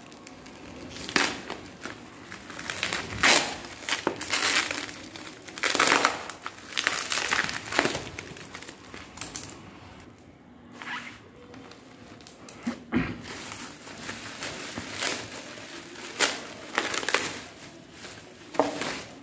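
Plastic bubble wrap crinkling and rustling in irregular bursts as it is cut open with a knife and pulled off a package, with brief tearing, and a short lull about halfway.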